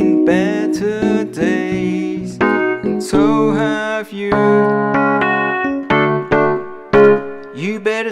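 Instrumental solo of a song played on a Yamaha digital piano, chords and melody going on without singing, with some notes sliding in pitch.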